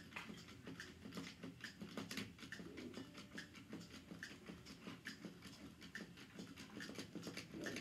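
A battery-powered Chubby Puppies toy waddling along a tabletop: a faint, fast, irregular patter of small plastic clicks.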